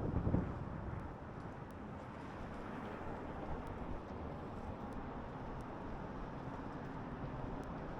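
Steady city background noise, an even hum of distant traffic, after a louder sound fades out in the first half second.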